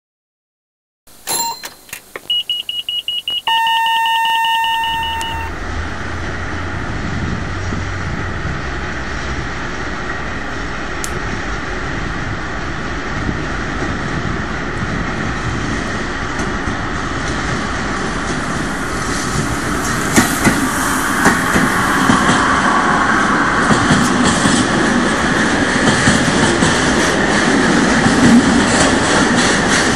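Electric-hauled freight train approaching and rolling past, a steady rumble of wheels and wagons that grows louder with sharp clicks over the rail joints in the second half. Near the start, a few clicks and a short held beeping tone come before the train noise.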